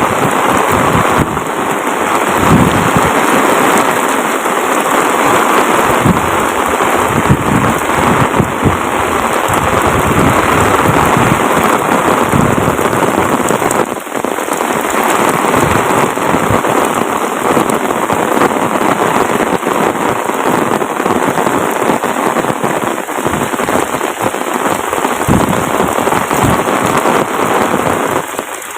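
Heavy rain pouring steadily, a dense rushing hiss with many close drops knocking and pattering.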